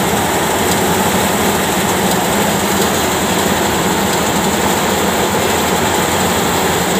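Fiat 640 tractor's diesel engine working under load, driving a thresher that is being fed dry cut crop. It makes a loud, steady mechanical din of engine and spinning threshing drum without a break.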